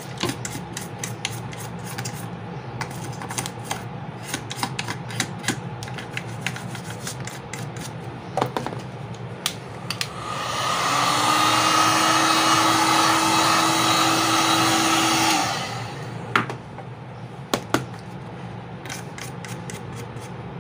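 Toothbrush bristles scrubbing carbon soot off a circuit board, a quick run of small scratchy clicks. About ten seconds in, a handheld hot-air blower runs for about five seconds with a steady hum and rush of air, then cuts off, and the scrubbing clicks resume briefly.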